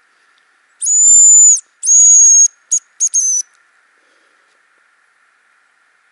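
Homemade hazel grouse decoy whistle blown close by, imitating the bird's call: two long high whistles followed by three short notes.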